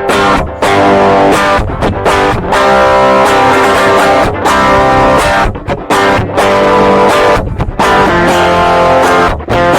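Electric guitar with P90 pickups strumming chords through a JOYO Tai Chi R-02 overdrive pedal with the gain and voicing turned up to about 3 o'clock, giving a crunchy but clear overdrive, recorded direct into an audio interface with no amp. The chords ring on with a few brief stops between phrases.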